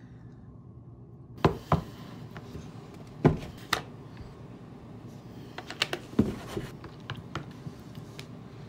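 Scattered knocks and clicks of tableware handled at a meal: a wooden spoon against a plastic bowl of oatmeal and a carton set on a wooden table. The knocks start about a second and a half in, with the loudest about three seconds in.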